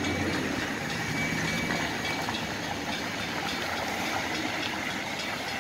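Amtrak Cascades Talgo train rolling past slowly on a 1% grade, a steady rumble of wheels on rail. A thin high whine sounds over it for the first couple of seconds, then fades.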